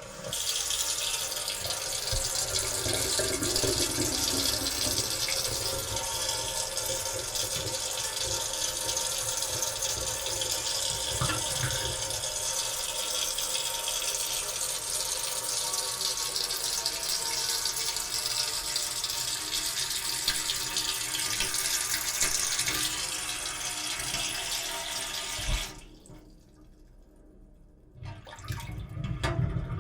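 Sink faucet turned on and running in a steady stream into the basin, then shut off about 26 seconds in; after a quieter couple of seconds, water starts again near the end.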